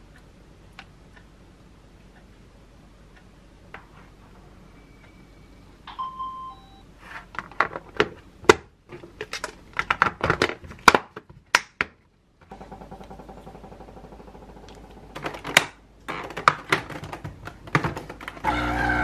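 Kitchen handling sounds: faint knife taps on a cutting board, then a run of clacks and snaps as plastic food containers are handled and their lids closed. Near the end an espresso machine starts up with a loud steady hum.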